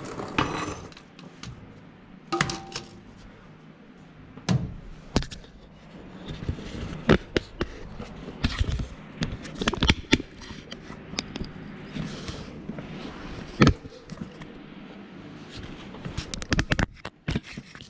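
Scattered knocks, taps and scrapes of tools and metal parts being handled during a truck repair, at irregular intervals, with sharper clicks clustering near the end.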